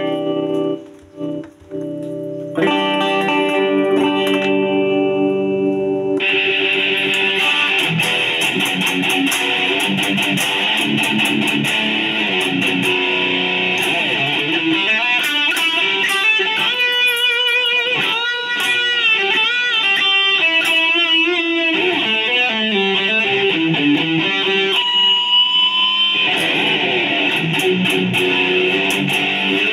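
Electric guitar played through a Line 6 POD HD Floor multi-effects processor, a sound check of the repaired unit. Sustained chords, briefly cut off twice about a second in, give way to a brighter tone about six seconds in, with bent and wavering lead notes in the middle and a long held note near the end.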